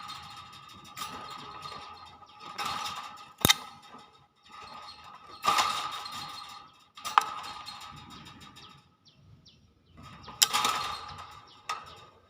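Hill myna giving a string of harsh, hissy calls every second or two, among them a few sharp cracks. A steady high tone runs underneath.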